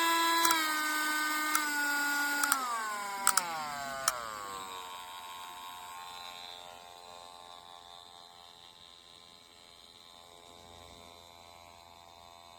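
Mini cordless rotary tool motor running with a high whine that drops in pitch in steps, each marked by a sharp click. It is then switched off and winds down to a stop about four to five seconds in, leaving only a faint hum.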